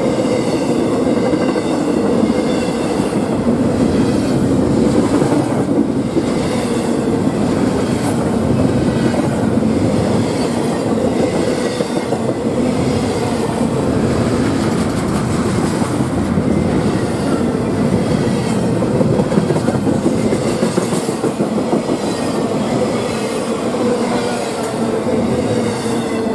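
Double-stack intermodal container train passing at speed: a steady, loud rumble and clatter of steel wheels on rail, with clickety-clack over the rail joints.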